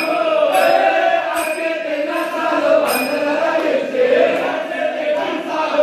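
A group of men chanting together in a loud, steady chant with held, wavering notes. A few sharp strikes with a brief ringing tail cut through now and then.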